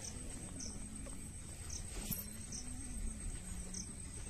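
Faint insect chirping at dusk: a steady high-pitched trill with short high chirps repeating roughly once a second.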